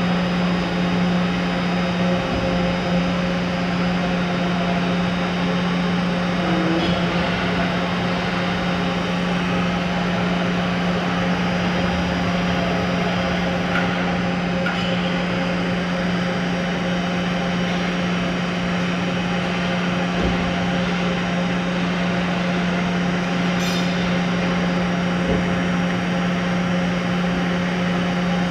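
Toshiba BP-130.P40 CNC horizontal boring mill running under power: a steady machine hum with a strong low tone and fainter steady whines above it, and a few faint ticks.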